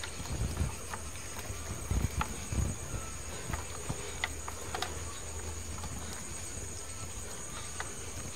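Faint small clicks and a few soft bumps as sliced almonds are scattered by hand over a tray of carrot burfi, over a steady high-pitched chirring in the background.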